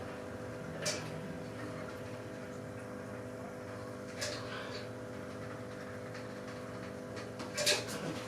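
Silicone sealant being run from a caulking gun: three short clicks and rustles over a steady hum, the loudest near the end.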